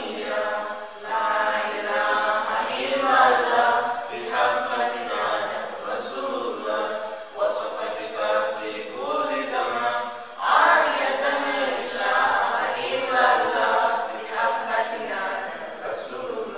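Unaccompanied voices singing a chant in long, flowing phrases.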